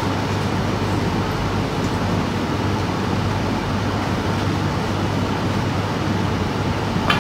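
Steady room noise: a low hum under an even hiss, with one short sharp click right at the end.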